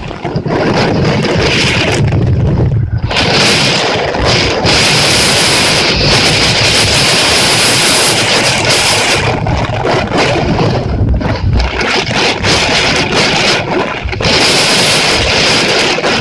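Loud, continuous rush of typhoon rain and wind, with gusts buffeting the microphone as low rumbles a few times.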